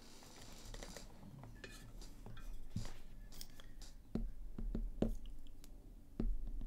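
Faint, scattered small clicks and taps over a steady low hum.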